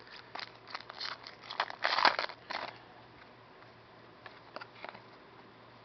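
Baseball card pack wrapper crinkling and tearing as it is opened by hand: a run of crackles over the first three seconds, loudest about two seconds in, then a few faint clicks.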